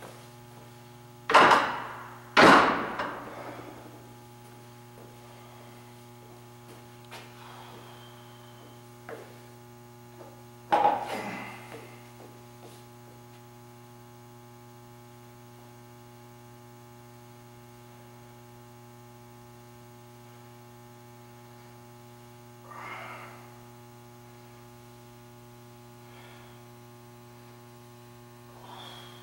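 Steady electrical mains hum in a quiet gym, broken by loud metal clanks of dumbbells, two close together about a second and a half in and another about eleven seconds in, each ringing briefly. Fainter knocks come near the end.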